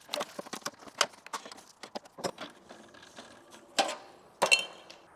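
Irregular light metal clicks and knocks from a steel electrical panel enclosure and its fittings being handled and worked on, with two louder clanks near the end, the second ringing briefly.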